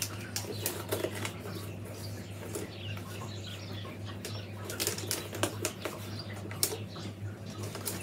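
Soaked buff willow whips clicking and rustling against each other as they are bent and wound into a wreath hoop, with irregular light taps throughout.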